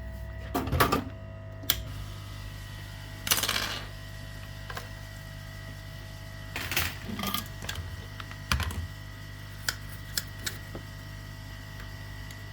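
Small tools and parts being handled on an electronics repair bench while a motherboard MOSFET is fitted. There are scattered clicks and taps and a few short scrapes, over a steady electrical hum.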